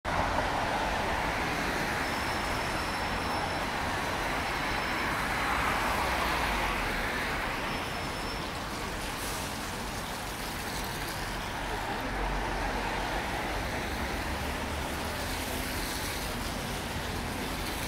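City road traffic on a rain-wet street: a steady wash of engine rumble and tyre hiss, swelling for a few seconds as a vehicle passes.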